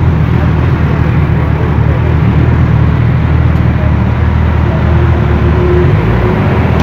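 Motorcycle engines idling steadily, among them a Suzuki Hayabusa's inline-four, with no revving.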